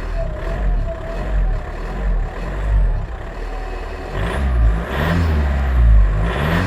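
Car engine accelerating, its pitch rising in repeated revs that grow louder over the last few seconds.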